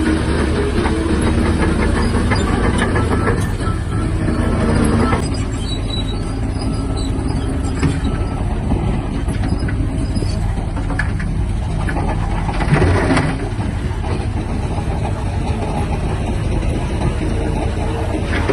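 Shantui DH17-C3 crawler bulldozer working: its diesel engine runs under load with the clatter of steel tracks. The engine pulls harder for the first few seconds, then surges again briefly past the middle.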